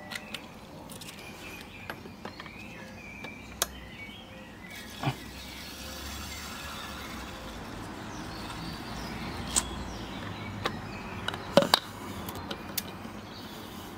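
Water being poured from a filler bottle into the brass boiler of a Mamod MM2 model steam engine, a soft trickling hiss lasting about five seconds that starts about five seconds in. A few sharp clicks and knocks of handling the engine, the loudest a quick pair near the end.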